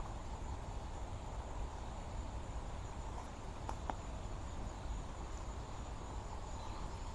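A steady chorus of insects with a low rumble of wind underneath, and two faint ticks about four seconds in.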